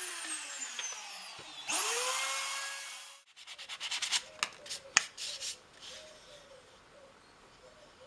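An electric router's motor winding down with a falling pitch, then a motor spinning up briefly about two seconds in and cutting off suddenly. After that, a wooden slat's edge is sanded by hand with a piece of sandpaper in a quick series of rubbing strokes.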